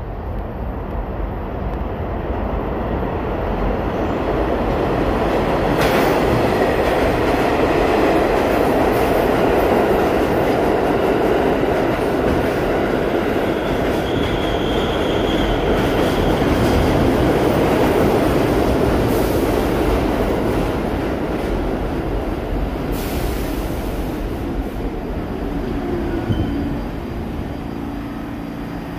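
New York City subway train running through the station: the rumble of the cars and wheels on the rails builds over a few seconds, stays loud for about fifteen seconds, then eases off. A brief high wheel squeal comes about fourteen seconds in.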